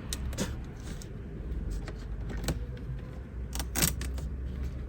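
Hands working on small parts in a car interior: scattered light clicks and rustles, with a sharper click about four seconds in, over a low steady hum.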